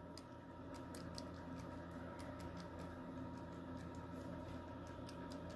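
Faint, irregular small clicks of a hand-filed key and interlocking pins in a brass Emhart lock cylinder as the key is jiggled and turned, over a steady faint hum. One pin binds, so the key turns only when wiggled.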